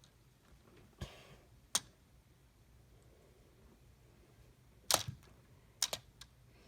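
A handful of separate, sharp clicks and knocks of small plastic Lego pieces being handled, over a quiet background.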